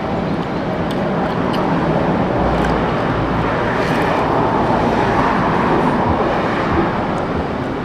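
Steady road-vehicle noise, an even rumble with a few faint clicks over it.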